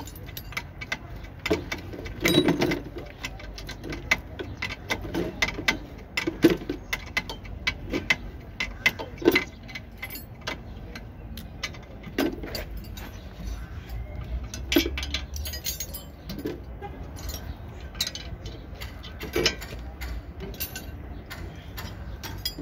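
Irregular metallic clicks and clinks of tools and parts being handled at a car's front brake disc, caliper and hub, with a few louder knocks every few seconds.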